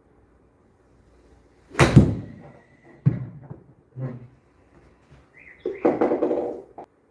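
Golf club striking a ball at an indoor simulator range: one sharp, loud crack about two seconds in with a short ringing tail, followed by a few smaller knocks and a longer, mixed stretch of sound near the end.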